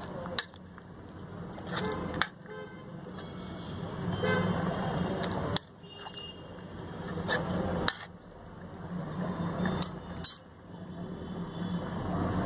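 A metal spoon knocking against an aluminium cooking pot about six times while a curry is stirred, over a steady low hum.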